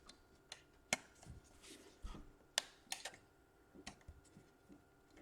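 Scattered light clicks and taps, irregular and a few a second at most, from small laptop parts being handled as the power jack bracket is pressed into place in the case.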